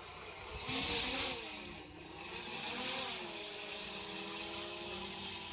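A small engine or motor running, its pitch wavering up and down before it settles and holds steady.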